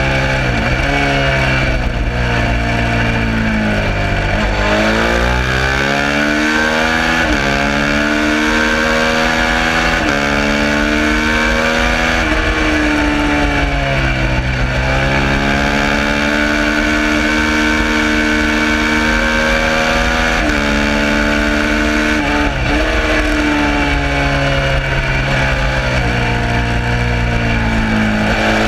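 Suzuki SV650 V-twin race bike engine at racing speed, revs repeatedly climbing and dropping as it shifts up and down through the gears, with several sharp dips as it comes off the throttle. A steady rushing noise runs underneath.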